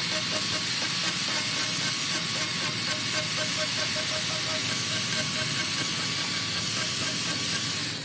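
A woodworking machine running steadily with a strong hiss and a faint regular pulse.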